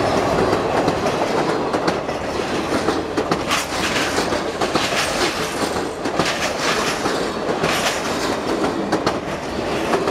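Passenger train cars rolling past: steel wheels clattering over the rail joints in a steady clickety-clack over a continuous rumble.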